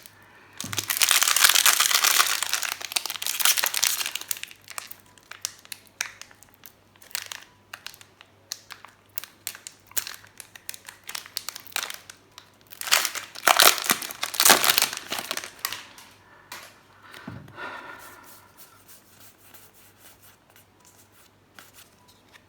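Foil wrapper of a Commander Legends draft booster pack crinkling and tearing open: loud for a few seconds near the start and again about halfway, with lighter crackles and clicks in between.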